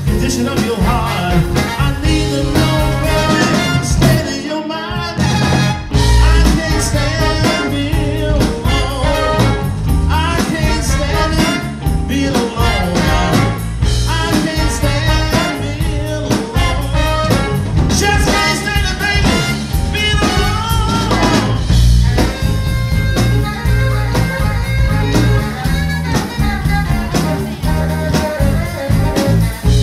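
Live blues band with a horn section of saxophone, trumpet and trombone playing over electric guitar, bass and drums. The band stops briefly about four seconds in, then comes back in together on a heavy hit.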